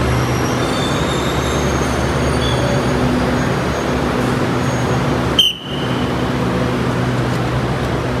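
Steady rumble of a train, with a low hum running under it and a sharp click about five seconds in.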